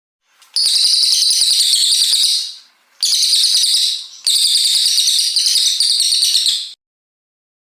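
A brown cililin, a small songbird, singing three long bursts of rapid, high-pitched trilling in quick succession, the last one the longest.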